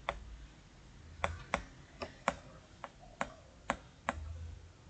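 Plastic stylus tip tapping and clicking on a tablet screen while words are handwritten: about nine short, sharp clicks at uneven intervals.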